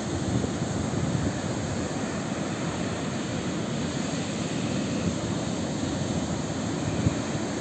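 Baltic Sea surf breaking on a sandy shore: a steady rush of waves, with wind rumbling on the microphone.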